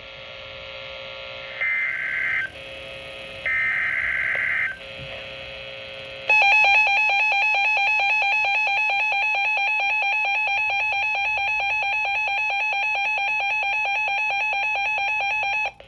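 Emergency Alert System tones on a weather-radio broadcast. First come several seconds of buzzy electronic data bursts (the SAME header), two of them louder. Then the steady, shrill two-tone EAS attention signal sounds for about nine seconds and cuts off suddenly, announcing a new severe thunderstorm warning.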